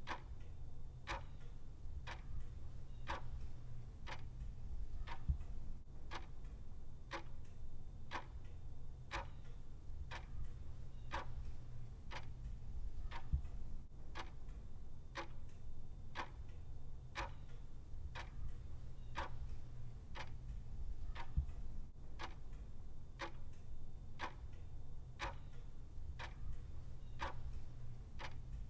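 Clock ticking steadily, about two ticks a second, over a low steady hum.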